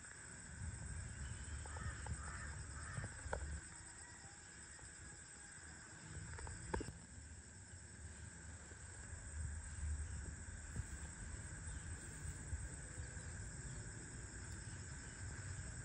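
Outdoor garden ambience: birds calling a few times over a steady high insect hum, with a low rumble underneath.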